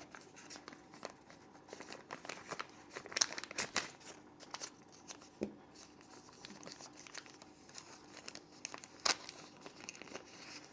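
Packaging being opened and handled: crinkling and rustling with scattered small clicks. The sharpest crackles come about three seconds in and again near the end.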